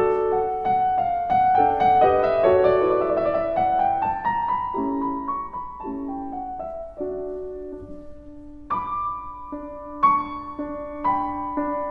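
Solo grand piano playing a gentle classical passage: a line of notes climbing over the first few seconds, a softer stretch with held notes, then chords struck about three quarters of the way through and again shortly after.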